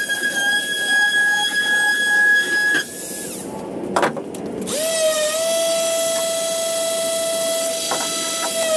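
A power tool runs with a steady high whine and cuts off about three seconds in. A couple of clicks follow, then a random orbital sander spins up about five seconds in and runs steadily on the plywood hull.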